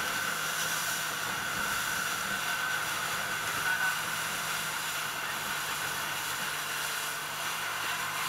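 Motorboat running at speed: a steady engine drone with a high whine over it, under the hiss of water and wind rushing past.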